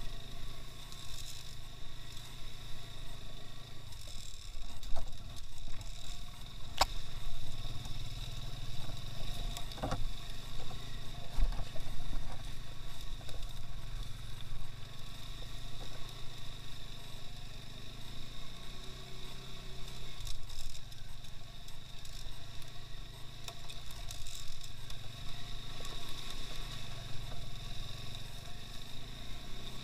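Engine of a two-wheel-drive (2x2) off-road motorcycle running steadily, with a couple of sharp clicks or knocks.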